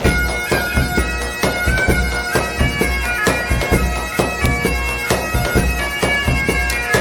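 Background music: a held, reedy melody that steps from note to note over a steady beat of about two thumps a second.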